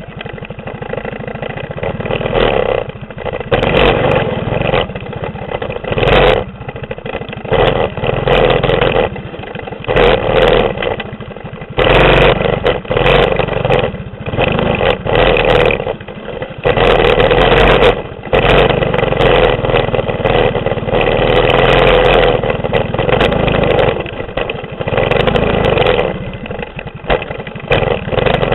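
Mini bike's 6.5 hp clone single-cylinder engine, ridden hard: it revs up and drops back again and again as the throttle is opened and closed.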